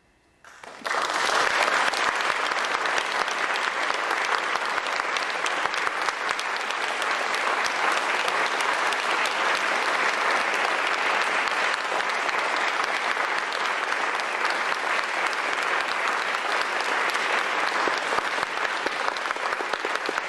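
After a brief hush, an audience breaks into applause less than a second in and keeps clapping steadily.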